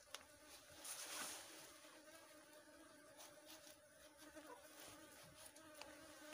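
Faint, steady buzzing of Asian honeybees (Apis cerana) flying around the opened comb, with a brief rasp about a second in as a knife cuts through the honeycomb, and a few light clicks.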